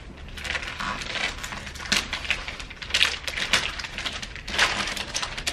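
Wrapping paper being torn and crumpled off a gift box. It comes as irregular crackling rips, with louder tears about two, three and four and a half seconds in.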